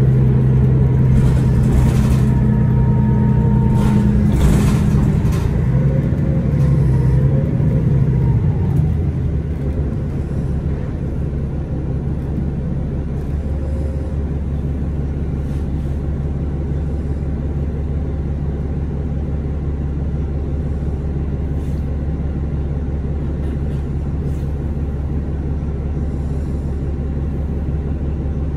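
2011 Orion VII 3G transit bus's Cummins ISL9 inline-six diesel running, heard aboard the bus. It pulls with a strong steady hum for the first several seconds, with a couple of brief clicks. After about nine seconds it eases off into a lower, quieter, steady rumble.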